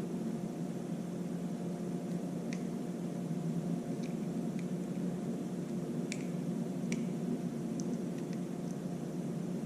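Light clicks and small plastic handling sounds, scattered and irregular, as a turn signal bulb is worked into its socket. A steady low hum runs underneath throughout.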